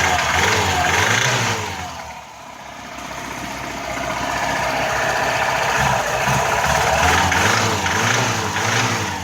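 Lada VAZ 2105 four-cylinder petrol engine with a knock in it, revved up twice and let fall back. The engine speed wavers and drops about two seconds in, then climbs again and eases off near the end.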